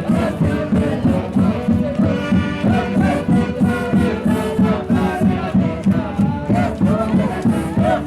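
Live festival orchestra music with a steady pulsing beat and wavering melody lines, and a crowd's voices chanting along.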